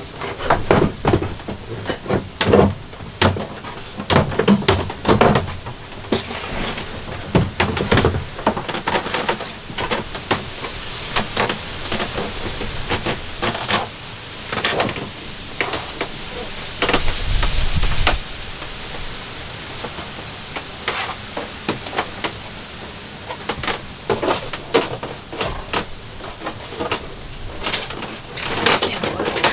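Hands working a shower pan in its framed van enclosure: irregular knocks, taps and scraping against the pan, with one longer scrape of about a second a little past the middle.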